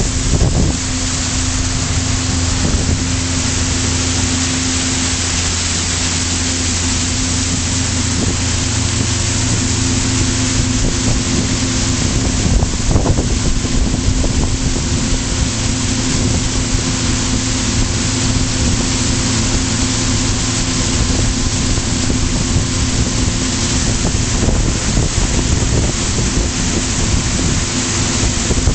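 Pontoon boat's engine running steadily at top speed, a constant engine hum under a heavy rush of wind on the microphone and water spray off the hull.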